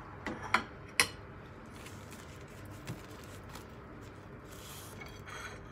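A few sharp clicks and knocks of a metal spoon and ceramic bowl being handled on a kitchen counter, three in the first second and one lighter knock near the middle. A brief soft rustle comes near the end.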